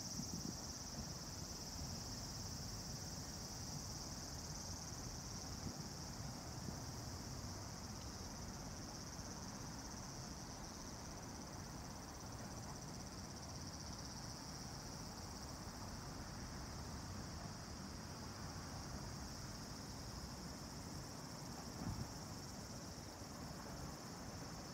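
Steady high-pitched drone of a summer insect chorus, over a low outdoor rumble.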